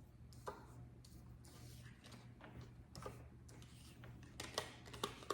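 A few faint, sharp clicks and taps, irregularly spaced and bunched near the end, over a steady low hum.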